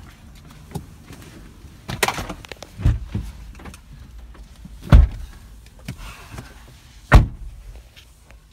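Car doors being shut as people get into a car: a few smaller knocks and bumps, then two loud slams about two seconds apart, the first the louder.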